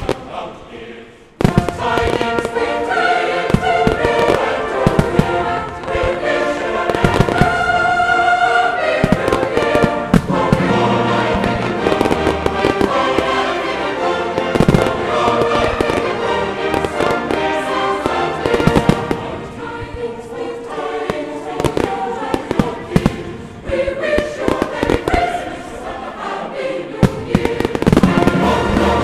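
Fireworks bursting and crackling over loud choral show music. The music and bangs start together about a second and a half in and continue densely.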